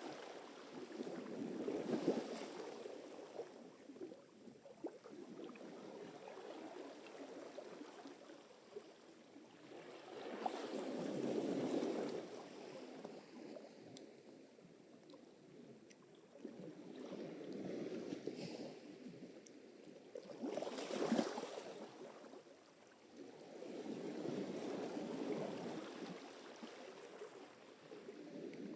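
Sea surf: waves breaking and washing up the shore, swelling and fading about every four to eight seconds, with the strongest breaks about two, eleven and twenty-one seconds in.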